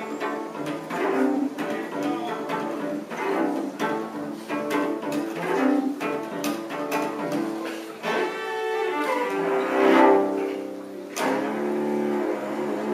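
Solo cello played with the bow: a run of short, changing notes, then longer held notes from about eight seconds in.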